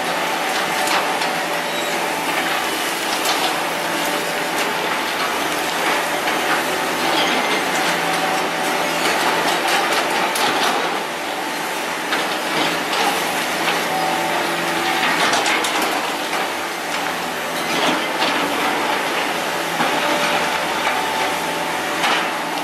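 Two hydraulic excavators, one a Kobelco, running steadily while their bucket and demolition attachment clank and scrape through concrete rubble and scrap metal, with repeated knocks over a steady machine hum.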